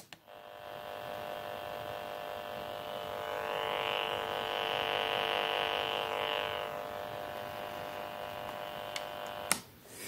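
Interference buzz from the speaker of a FrSky Taranis Plus radio, caused by the installed TBS Crossfire transmitter module: a steady, many-toned electrical buzz that swells louder for a few seconds in the middle. It cuts off suddenly with a click near the end.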